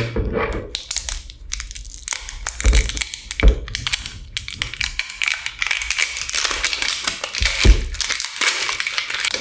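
Plastic outer wrapping being torn and peeled off a smartphone box, crinkling and crackling throughout, with a few dull knocks of the box being handled.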